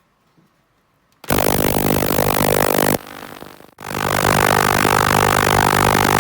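Loud, steady hum of a mains-powered workshop machine, switched on suddenly about a second in, dropping off briefly around the middle, then running again.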